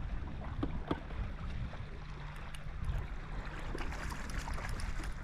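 Wind on the microphone and lake water lapping against a small fishing boat, with a few light clicks and small splashes as a hooked fish is netted.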